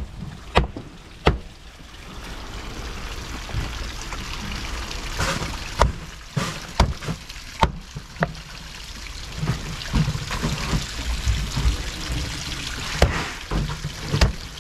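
Water running and splashing, with scattered sharp knocks and clatters.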